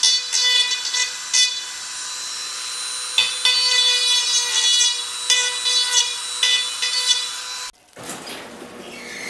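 High-speed rotary tool with a cut-off wheel trimming down a bolt that is too long: a steady high whine with repeated harsher grinding bursts as the wheel bites the metal, stopping abruptly near the end.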